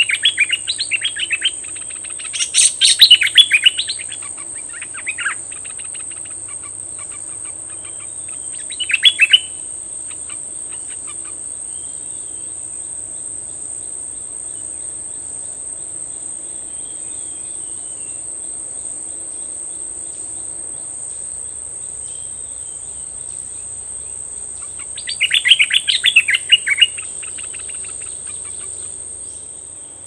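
Bulbul singing short bursts of quick, chattering notes several times, with long gaps between them. A steady high insect drone continues underneath.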